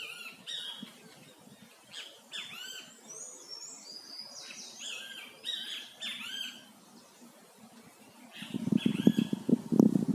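A songbird singing a run of short, varied whistled phrases, repeated over several seconds. About eight and a half seconds in, a louder, uneven low rumble sets in.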